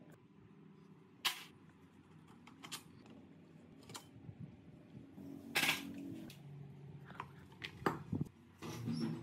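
Metal clinks, knocks and scrapes from a Honda Super Cub C50's rear axle, chain adjuster and wheel being worked loose and pulled out by hand. There are a handful of sharp clicks spread out, the loudest about five and a half seconds in and a short cluster near the end.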